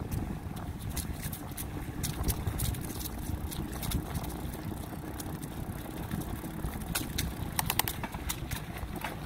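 Bicycle rolling along a paved path strewn with leaves: a steady low rumble of tyres and wind on the microphone, with scattered sharp clicks and rattles.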